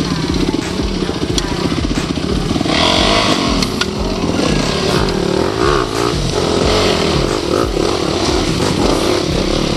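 Off-road motorcycle engine revving in repeated bursts, its pitch rising and falling as the throttle is worked.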